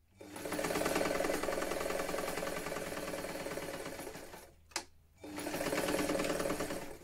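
Vintage electric sewing machine stitching a seam at a fast, even speed. It stops a little after four seconds in, there is a single sharp click, and it runs again for about two seconds.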